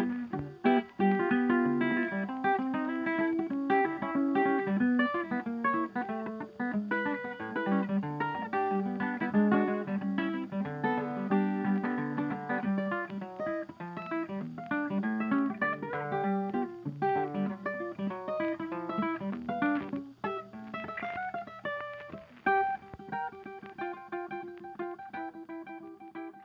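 Background music: a plucked acoustic guitar playing a melody with quick picked notes, tapering off near the end.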